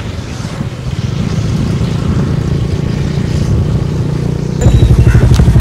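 Motorcycle engine running while the bike is ridden, a steady low rumble under a haze of road and wind noise. About four and a half seconds in the rumble turns louder and more strongly pulsing.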